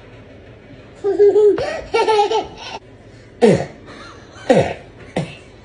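Laughter with a small child's high-pitched voice: a stretch of high vocalizing about a second in, then three short laughs that fall in pitch.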